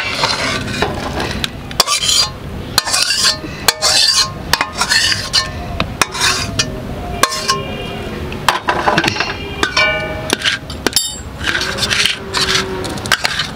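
Spatula scraping and knocking against a metal wok and a steel bowl as cooked greens are tipped out and spread, with repeated clinks of metal on metal.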